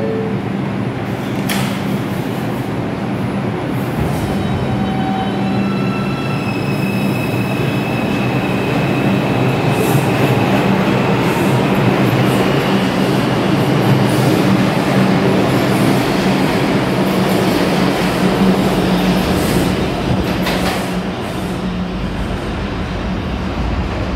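R142 subway train pulling out of the station. Its electric traction motors whine up in a series of rising tones in the first several seconds. Wheel and car noise then builds as the cars run past and eases near the end as the train leaves.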